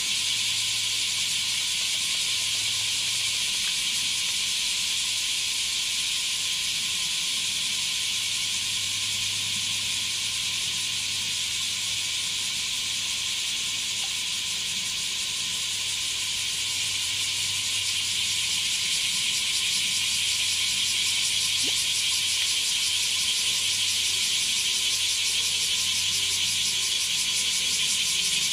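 Chorus of bear cicadas (kumazemi), a loud, steady, high-pitched pulsing buzz that grows slightly louder near the end.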